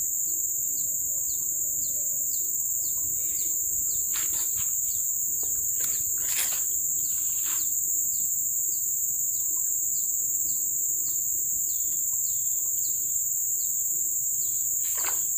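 Riverside insect drone, a steady high-pitched whine at two pitches, with a bird's short falling chirp repeating about twice a second. A few brief clicks of handling the rod and bait come about 4 and 6 seconds in and again near the end.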